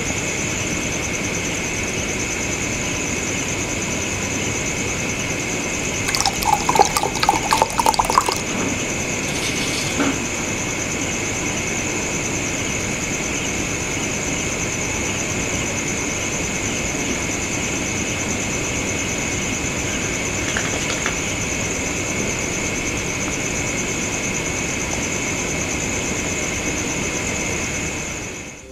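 Steady hiss of room noise. About six seconds in, a short burst of clinks and splashing comes from water being poured from a bottle into a glass.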